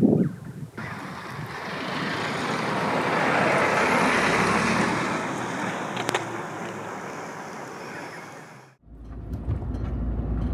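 Vehicle road noise: a rush of tyre and wind noise that swells over a few seconds and fades, cut off abruptly near the end. After the cut comes a low steady rumble.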